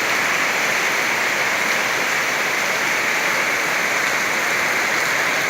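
Very heavy rain pouring down in a summer storm: a steady, unbroken rush of rainfall.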